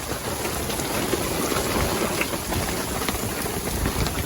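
Hail pelting down on a sailboat's deck and canvas: a steady, dense rush of countless small impacts.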